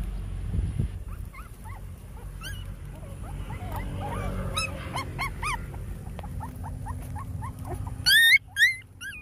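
Puppies crying: many short, high, rising-and-falling cries, scattered at first and then louder and higher near the end. They are the distress cries of abandoned puppies caught in a sack.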